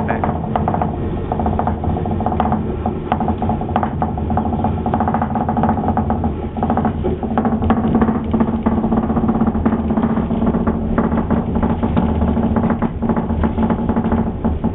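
Watermill gearing and millstones running while grinding dredge corn: a steady hum with a rapid, continuous clatter of turning gear teeth and shafts.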